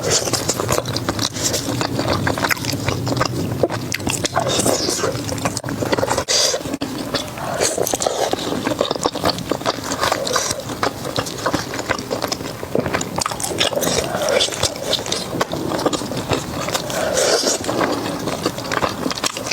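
Close-miked eating: continual bites, crunching and chewing of crispy food, with wet mouth sounds and dense, irregular crackles throughout.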